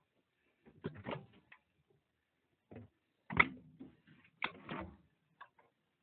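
Scattered clicks and knocks of an RV cabinet door being opened and handled, loudest about three and a half seconds in.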